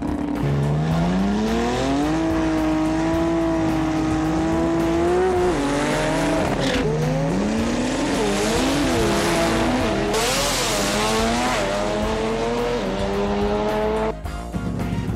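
Drag racing car engine revving hard and accelerating, its pitch climbing steeply at first and then holding. Later the pitch swings up and down, with a stretch of tire noise. The sound breaks off sharply near the end.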